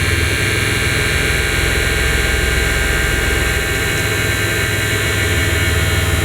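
Mitsubishi Pajero II Up&Down hydraulic suspension pump running steadily to raise the body, a whine over the idling engine.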